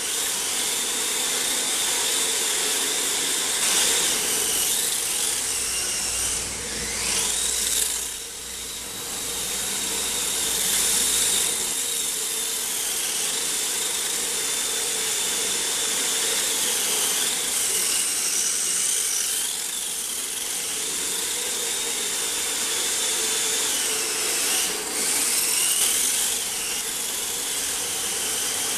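Electric motor of a radio-controlled car whining steadily over a hiss, its pitch dipping and climbing back several times as the throttle changes.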